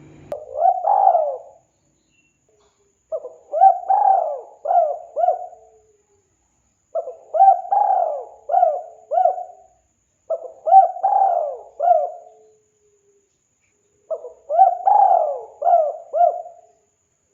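Spotted dove (tekukur) cooing: five short phrases of three to five coos each, repeated every three to four seconds with silent gaps between.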